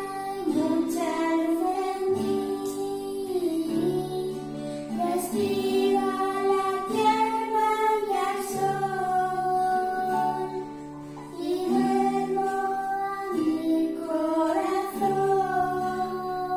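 A song playing: a sung melody in long held notes over instrumental accompaniment.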